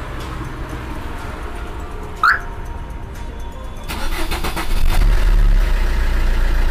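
Car engine cranked by the starter about four seconds in, catching and then running with a loud low rumble. A short rising squeak about two seconds in, before the cranking.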